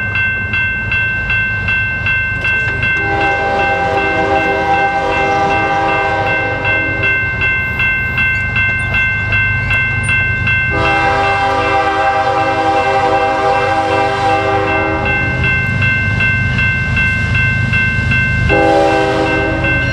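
Approaching CN freight locomotive's multi-note air horn blowing the grade-crossing signal: two long blasts, then a short one near the end. A steady electronic crossing bell rings throughout, under the low rumble of the train.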